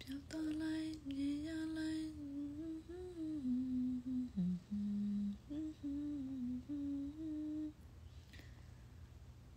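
A woman humming a slow melody with her mouth closed: held notes stepping up and down, stopping about eight seconds in.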